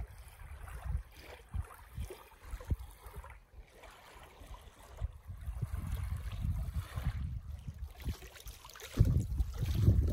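Small waves lapping on a sandy lakeshore, with gusts of wind buffeting the microphone, the strongest gust near the end.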